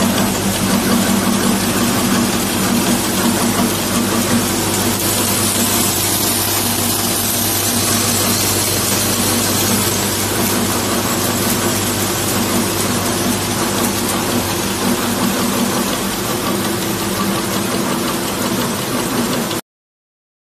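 Screw-and-washer assembly machine running, with its vibratory bowl feeder: a steady hum under a continuous noisy mechanical clatter. It cuts off suddenly near the end.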